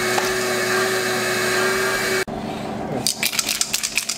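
A steady whirring machine drone with a constant hum, which cuts off suddenly about two seconds in. About three seconds in, an aerosol can of 2K clear coat is shaken, its mixing ball rattling rapidly for about a second.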